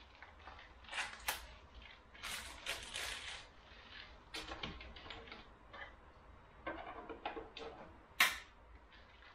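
Small plastic parts and packaging handled by hand: scattered rustles and light clicks, with one sharper click near the end.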